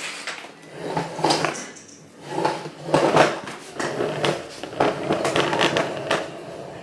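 Plastic high chair being handled and moved over a tile floor: a run of irregular clattering knocks and scrapes from its tray and frame.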